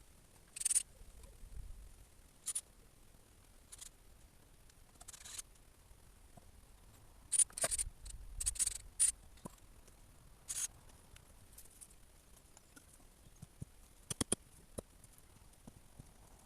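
Intermittent short scrapes and rustles, a few seconds apart, with a quick run of sharp clicks near the end.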